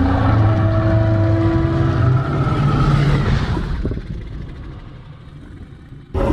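Triceratops roar sound effect: a loud, deep call with several pitches layered together, some rising a little, that holds for about three seconds and then fades away. A new deep roar starts right at the end.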